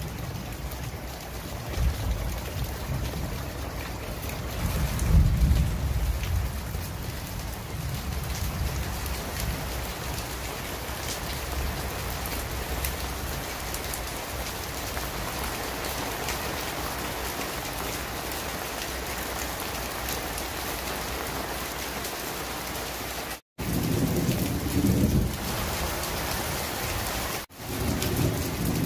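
Heavy rain pouring steadily onto leaves, with low rumbles of thunder near the start and again in the last few seconds. The sound cuts out abruptly for a moment twice in the later part.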